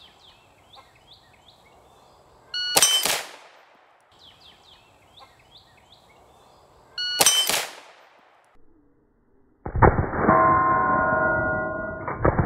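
Two shots from an 1873 Winchester lever-action rifle in .32-20, each followed by a steel target ringing, about four seconds apart. From about ten seconds in comes a loud, sustained sound with several steady tones.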